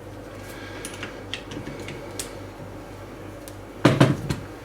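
Metal spanner being fitted to the chainsaw attachment's 10 mm cover nut: a few light clicks, then a louder metallic clank about four seconds in.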